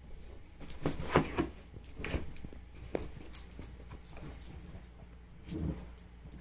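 A dog digging and rubbing itself into blankets on its bed: irregular bursts of fabric rustling and scuffing with soft knocks, loudest about a second in, with another burst near the end.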